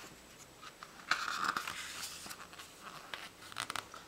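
Pages of a book being turned by hand: paper rustling, loudest about a second in, followed by lighter rustles and small clicks.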